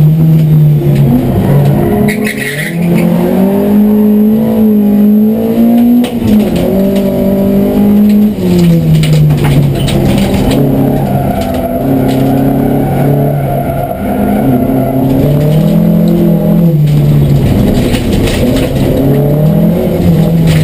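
Volvo 240 rallycross car's engine heard from inside the cockpit, racing at full load. Its revs climb and drop several times through acceleration, gear changes and lifts for corners.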